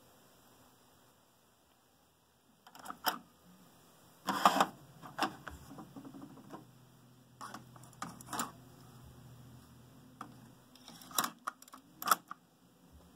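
Akai CS-703D cassette deck being loaded: a string of mechanical clicks and clunks from the eject mechanism and cassette door, with the loudest clunk a little over four seconds in, plastic clicks as a cassette is seated, and two sharp clicks near the end as the door is pushed shut.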